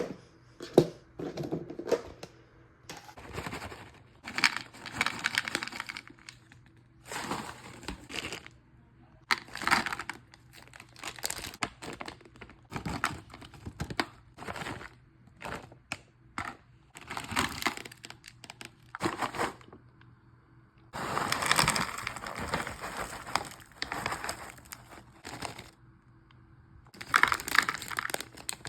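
Snack packaging crinkling and tearing open, and snacks clattering into the plastic compartments of a snackle box. The sounds come in separate bursts a second or two long, with sharp clicks and short pauses between them.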